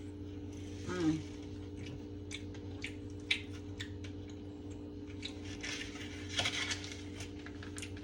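Eating sounds: a fork clicking and scraping on a plate and chewing, over a steady low hum.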